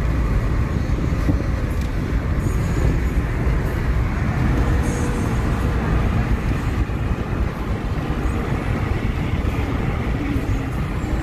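Steady low rumble of engine and tyre noise inside the cabin of a moving car.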